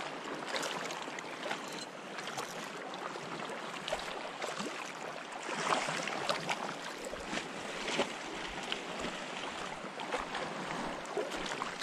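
Shallow seawater lapping and sloshing around rocks, with scattered small splashes and clicks as a small hooked sea bass is drawn in at the surface.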